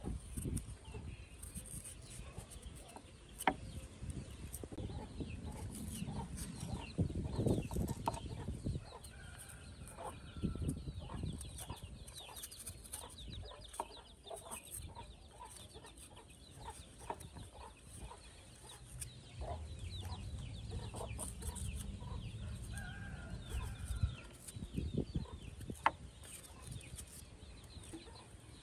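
Chickens clucking now and then, with short calls among scattered sharp clicks and knocks.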